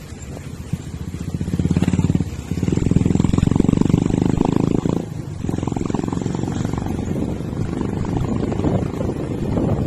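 Diesel bus engine running with a low, pulsing rumble; it swells as the engine revs up about two seconds in, drops back suddenly about five seconds in, and then runs steadily.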